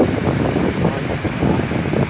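Wind buffeting the microphone: a rough, uneven rumble.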